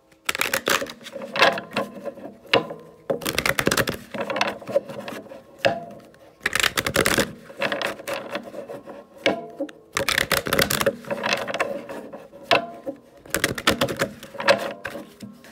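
Romance Angels oracle cards being shuffled by hand, overhand: repeated bursts of cards slapping and rustling against each other, a fraction of a second to about a second each, with short pauses between.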